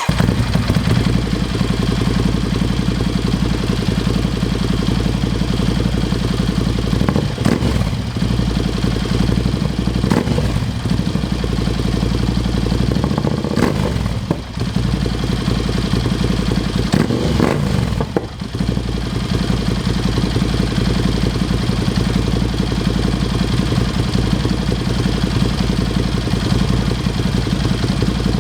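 Ducati Scrambler 803's air-cooled L-twin idling through an HP Corse Hydroform slip-on exhaust, with a few short throttle blips in the first twenty seconds before settling to a steady idle.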